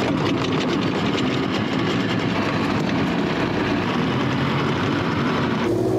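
Twin Yamaha 25 hp two-stroke outboard motors running together with a steady, dense engine clatter, now firing after a replacement CDI box cured their lack of spark. Near the end the sound changes abruptly to a steadier, deeper hum.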